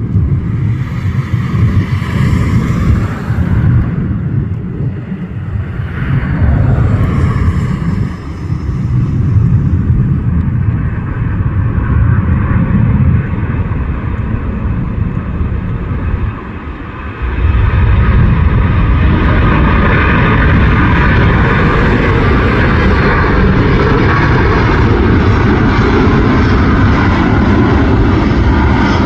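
Airbus A380-800 airliner's four jet engines at takeoff power, a loud rumble that comes and goes at first, then grows louder about two-thirds of the way through and holds steady.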